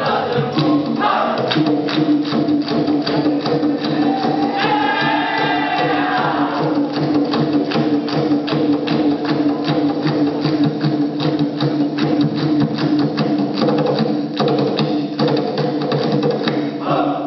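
Dikir barat music: a fast, even percussion beat under held sung notes, with a voice sliding up and down about five seconds in.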